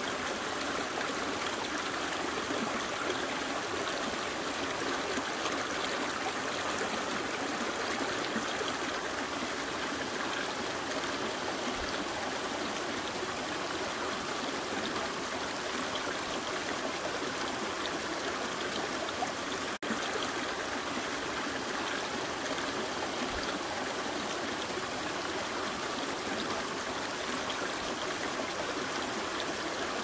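Mountain stream rushing and splashing steadily over rocks in small cascades, with a momentary break about twenty seconds in.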